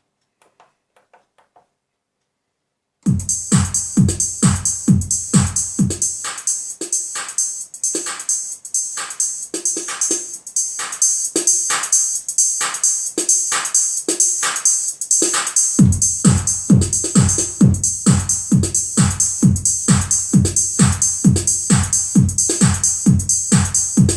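Korg Pa50SD arranger keyboard playing a drum-machine-style rhythm pattern with keyboard parts, starting abruptly about three seconds in after a few faint clicks. The low kick drum drops out for about ten seconds and then comes back under the steady hi-hat.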